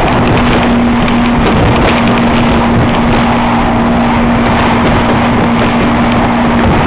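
Outboard motor of a speedboat running at speed while towing, with a steady engine note over a loud rush of wake water and wind.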